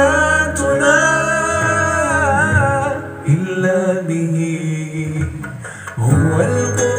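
Karaoke through an Asatron HT8881UKM 15-inch portable party speaker: a man sings into its wireless microphone over a song streamed from a phone. The melody has held, wavering notes over a steady bass line.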